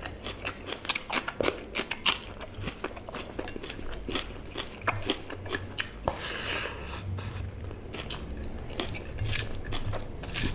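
Close-miked mouth sounds of a person eating rice and curry by hand: wet chewing, lip smacks and sharp clicks. A longer, noisier sound about six seconds in comes as a handful of rice goes into the mouth.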